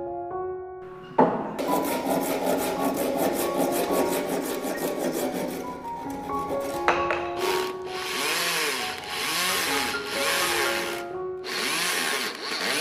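Handsaw cutting through a wooden tree branch. It starts suddenly about a second in with a continuous rasping, then turns into separate back-and-forth strokes about twice a second. Soft background music plays underneath.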